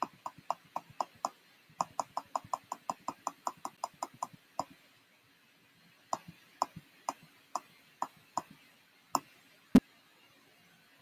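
Computer mouse and keyboard clicks: a quick run of sharp clicks, about five a second, for the first few seconds, then a pause and slower single clicks. Near the end there is one louder, deeper knock.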